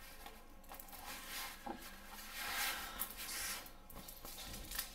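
Rustling and rubbing of the clear protective plastic film on a diamond painting canvas as it is handled and shifted, in several soft swells.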